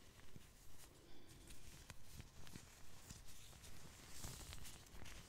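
Blue latex gloves scrunched and crinkled between the fingers close to the microphone, a soft, irregular crackling and rustling made of many small ticks.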